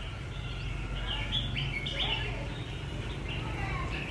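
Caged red-whiskered bulbuls chirping and singing: a string of short, bright notes that slide up and down, busiest about a second in, over a steady low hum.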